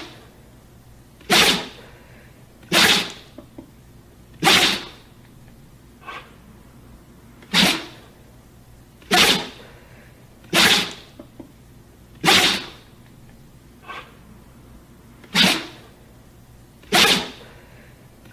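A dog sneezing over and over, about nine sharp sneezes spaced roughly a second and a half apart, with two fainter ones in between.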